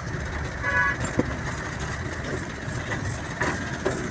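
Hammer striking a steel drift inside a Tata truck differential carrier housing: a sharp metal strike at the start and another about a second in, then lighter metal clinks, over a steady low drone of engines. A brief horn toot sounds just under a second in.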